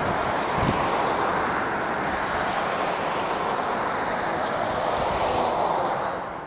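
Boeing 737 airliner on final approach with its landing gear down, its jet engines giving a steady roar heard from behind, mixed with some wind buffeting on the microphone. The sound fades out near the end.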